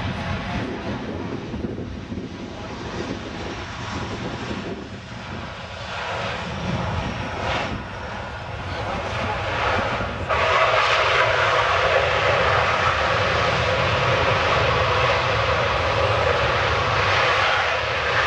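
Boeing C-17 Globemaster III's four turbofan engines after touchdown, the big jet rolling out along the runway. About ten seconds in, the engine noise rises suddenly and stays loud.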